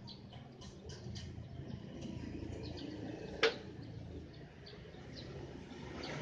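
Outdoor ambience: a steady low hum with faint scattered ticks and chirps, and one sharp click about three and a half seconds in.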